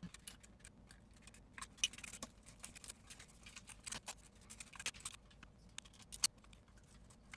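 Faint, irregular small clicks and taps of plastic parts and a precision screwdriver being handled while a digital tape measure is taken apart, with a few sharper clicks spread through.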